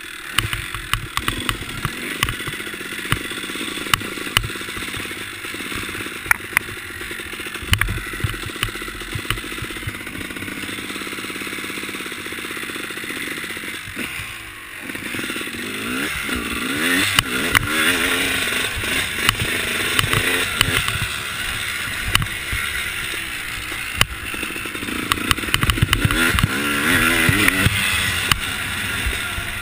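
Dirt bike ridden hard around a motocross track, its engine revving up and down through the gears, with clatter and knocks from the bike over rough dirt. About halfway through the engine drops briefly, then revs back up.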